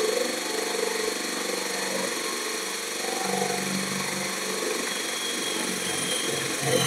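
Ralli Wolf cordless drill running steadily under load as its bit bores a hole into a wooden board, the motor's whine mixed with the bit cutting wood. Its tone shifts a little about three seconds in.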